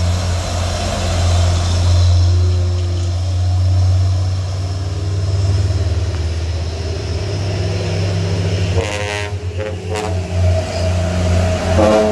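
Heavy diesel tanker truck climbing a steep incline, its engine labouring in a steady low drone as it passes close by. There is a short higher-pitched sound about nine seconds in.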